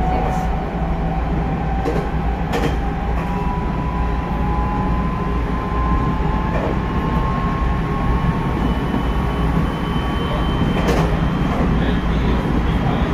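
Hokuetsu Express HK100 electric train running at speed, heard from inside the cab: a steady rumble from the wheels on the rails, under a motor whine that slowly rises in pitch. A few sharp clacks come from the rail joints and points.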